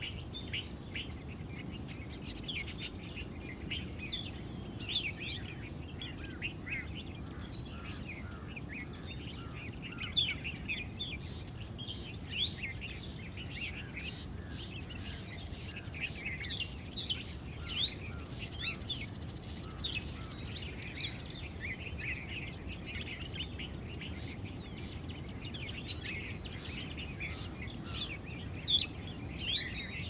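Many small birds chirping at once: a dense, unbroken chatter of short high notes overlapping one another, over a steady low background rumble.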